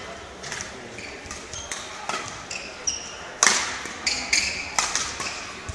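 Badminton rally: sharp smacks of rackets hitting the shuttlecock, echoing in a large hall, the hardest about three and a half seconds in, with short squeaks of shoes on the court between shots.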